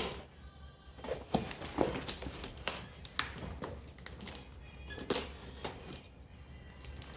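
A mailed package being opened by hand: irregular scrapes, clicks and rustles of cardboard and tape.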